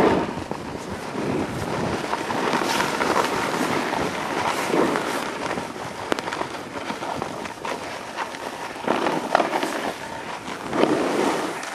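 Snowboard sliding and turning through powder snow, a rushing hiss that swells with each turn, mixed with wind on the microphone.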